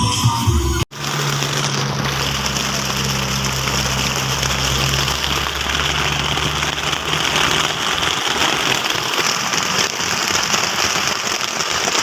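Steady hiss of rain, with a low steady hum underneath for the first several seconds that then fades away.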